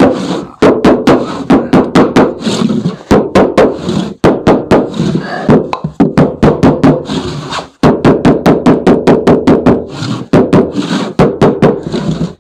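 Mallet striking a wooden block held against a rigid PIR insulation board, tapping the tight-fitting board home between roof rafters. The rapid knocks come at about four a second, with two short pauses.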